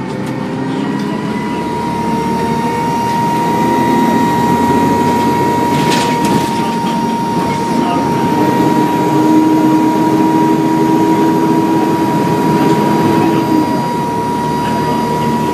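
Dennis Trident II double-decker bus under way, heard from on board: its diesel engine is loud, with a high, steady turbo whine that rises slightly about a second in and then holds. A brief rattle about six seconds in.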